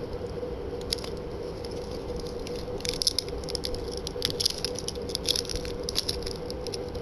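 Small rattles and clicks from hands handling a camcorder and its packaging, thickest in the second half, over a steady low electrical hum.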